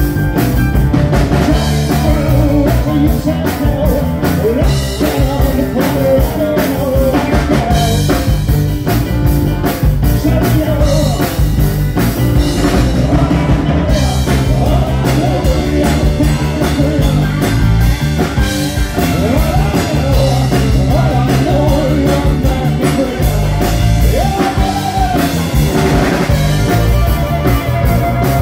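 Live blues-rock band playing: drum kit, bass guitar, electric keyboards and male lead vocals. Near the end the singer plays a harmonica cupped to the vocal microphone.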